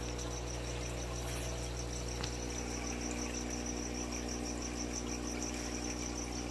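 Aquarium equipment (sump pump and filter) humming steadily, with a fast, evenly pulsing high-pitched tone over the hum.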